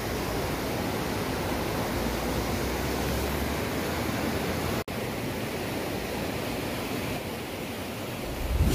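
Steady rush of whitewater from a rocky mountain river running between boulders. It cuts out for an instant about five seconds in, and a brief low rumble swells up near the end.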